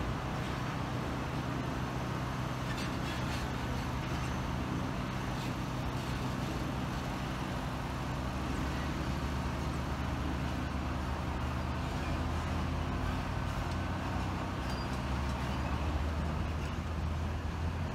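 Box truck's engine running at low speed as it drives along the street and turns into a parking lot: a steady low engine hum.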